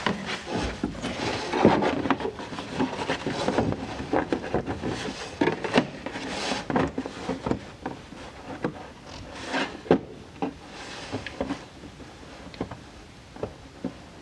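Thin cardboard template being handled, trimmed and test-fitted: irregular rustling and rubbing with many light knocks and clicks.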